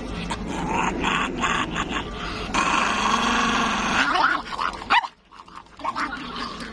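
Small black-and-tan dog growling in a long run of grumbling noises, breaking off about five seconds in.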